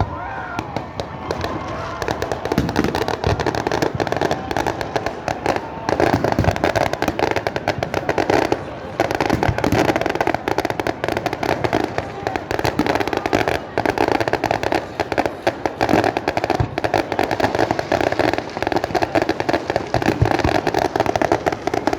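Many fireworks and firecrackers going off at once: a dense, continuous crackle of rapid bangs, with a few whistling rockets near the start.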